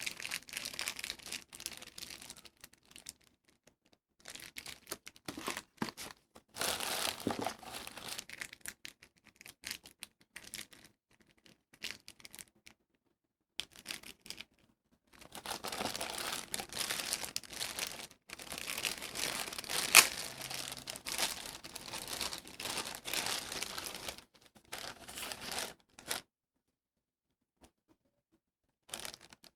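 Plastic packaging crinkling and tearing as it is handled and opened, in bursts with pauses between, with one sharp snap about twenty seconds in.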